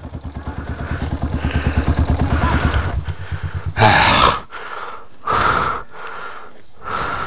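Dirt bike engine running with a rapid, even beat that swells and then fades out about three seconds in. It is followed by three loud, breathy bursts of heavy breathing.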